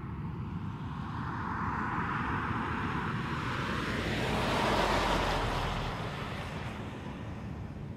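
Mazda 6 wagon driving past: road and engine noise swells to a peak about halfway through, then fades as the car pulls away.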